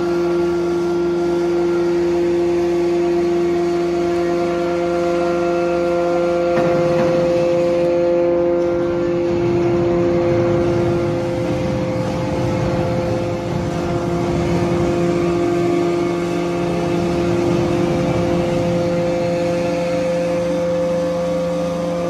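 Hydraulic power unit of a 250-ton horizontal metal baler running: an electric motor and pump giving a steady hum with a whine on top. The low hum turns rougher about six and a half seconds in and steadies again near the end.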